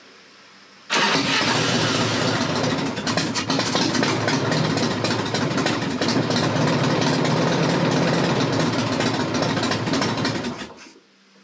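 Harley-Davidson Evolution V-twin engine started on the choke, catching suddenly about a second in and running loud and steady for about nine seconds, then shut off and dying away near the end.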